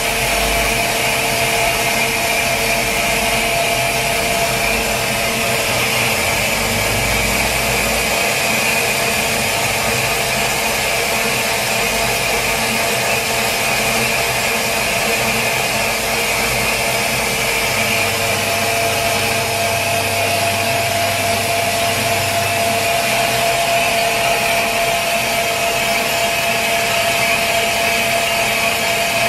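Metal lathe running steadily, its tool cutting the rim of a spoked flywheel: a constant machine whine with a higher ringing tone above it.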